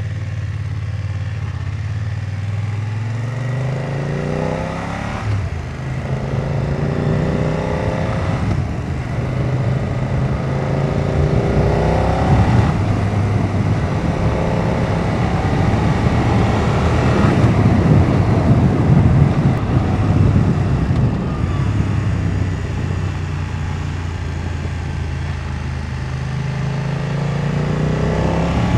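BMW F900R's 895 cc parallel-twin engine under way, heard from the rider's helmet. It accelerates through several gears, its pitch rising and dropping at each shift. The loudest stretch comes a little past the middle, with a steadier pull thick with rushing wind, and it climbs again near the end.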